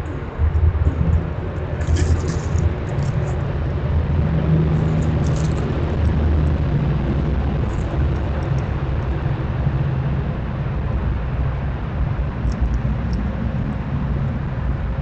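Steady low rumble, with a few faint, short high ticks or chirps scattered through it.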